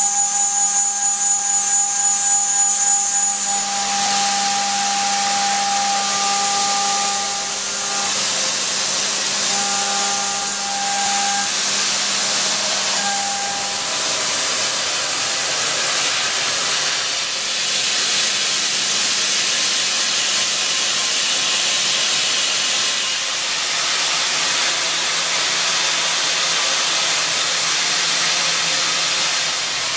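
CNC machining centre milling SCM415 steel with a 6 mm carbide end mill spinning at 12,000 rpm under oil-mist coolant. A steady whine of the spindle and cutter sits over the constant hiss of the oil mist, and the tones break off and resume as the tool moves between passes. In the second half the oil-mist hiss dominates as the machine goes on to drilling.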